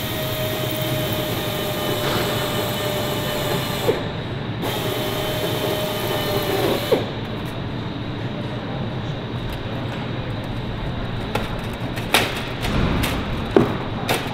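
Crimping machine working the edge of a metal skin panel to shrink it: two runs of a few seconds each with a steady whine, one pausing about four seconds in and the other stopping about seven seconds in. Near the end come a few sharp clicks and knocks of the sheet and machine being handled.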